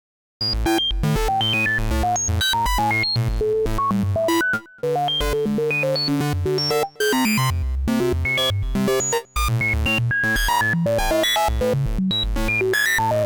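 Software synthesizer preset playing: a quick run of bright pitched notes over a pulsing low bass, starting about half a second in, with three short breaks along the way.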